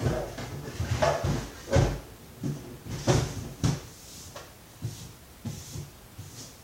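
Hard plastic vacuum-cleaner parts knocking and clattering as the vacuum is pulled apart by hand: a run of sharp knocks, loudest about two and three seconds in, fewer and fainter toward the end.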